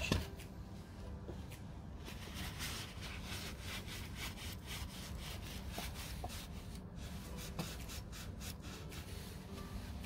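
Cloth rubbing by hand on a small part, a fast run of scratchy wiping strokes starting about two seconds in and easing off near the end.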